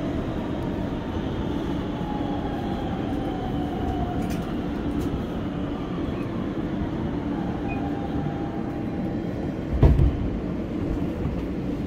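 New York City Subway R160B train at a station stop: a steady rumble with faint falling whines, a few light clicks, and one heavy thump near the end.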